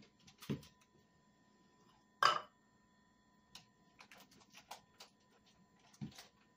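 A seasoning-mix packet being handled and pulled at to open it: scattered crinkles and small clicks, with one louder rustle a little over two seconds in.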